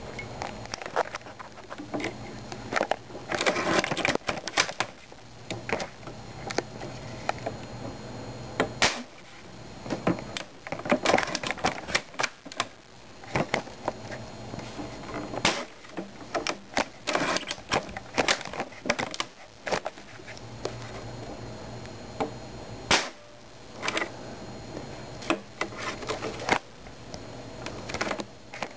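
Irregular runs of sharp clicks and clacks from the action of a Mauser SR airsoft sniper rifle being worked by hand, in clusters with short pauses between them.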